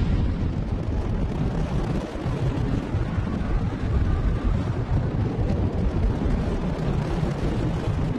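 Saturn V rocket's five F-1 first-stage engines firing at liftoff: a loud, steady, deep rumble with a hiss above it.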